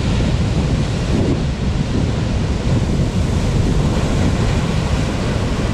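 Heavy surf breaking over a rocky shore: a steady low rumble and wash of big waves, with wind buffeting the microphone.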